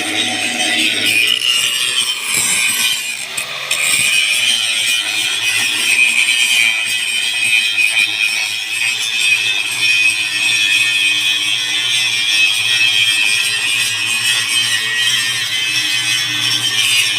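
Angle grinder grinding metal with a steady, high rasping noise. Its pitch dips briefly about two seconds in and comes back up around four seconds.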